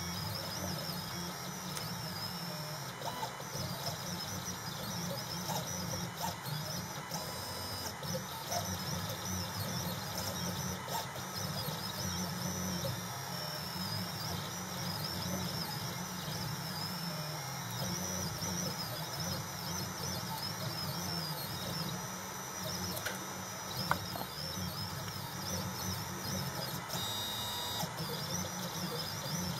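Desktop CNC engraving machine running a job: its stepper motors whine, the pitch wavering up and down as the axes speed up and slow down, with an occasional sharp click.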